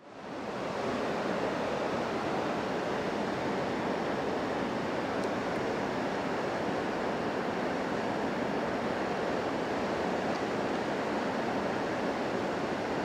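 Steady rush of a river pouring over a low weir and through rapids, fading in over the first second.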